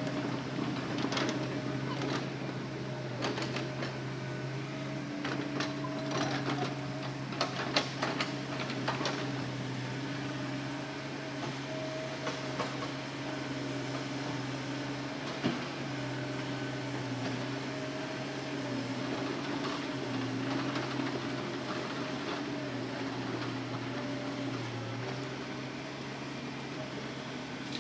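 Hitachi Zaxis excavator running steadily at working revs, its engine and hydraulics making a constant drone while it loads logs. A run of sharp knocks and clatters comes in the first ten seconds, and one more knock comes at about fifteen seconds.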